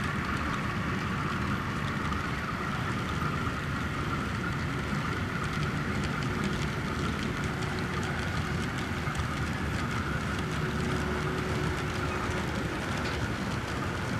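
HO-scale model passenger train running along layout track: a steady mechanical running noise with a hiss over it.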